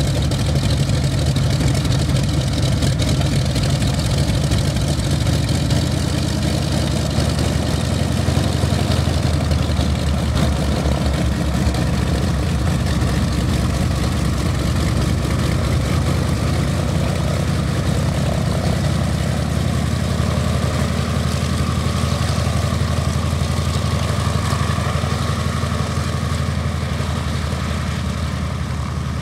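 A6M2 Zero fighter's radial engine idling on the ground, a steady low, fast-beating engine sound that eases off slightly near the end.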